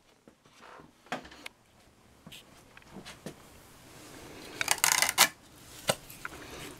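Scattered clicks, taps and light knocks of handling on a wooden motor test rig as the camera is moved about, with a dense run of rattling clicks about five seconds in.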